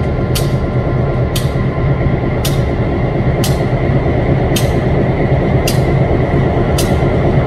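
EMD F7 diesel locomotive's V16 two-stroke engine running with a steady low rumble and a faint steady whine, while a sharp tick repeats about once a second.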